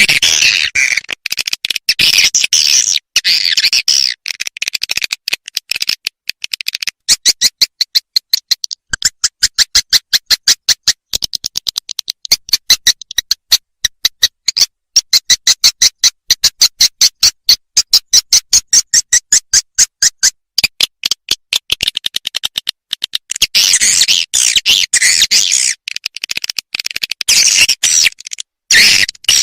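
Swiftlet calls played as a swiftlet-house lure: dense high twittering, turning after several seconds into a fast, even series of sharp chirps about five a second, then back to dense twittering after about 23 seconds.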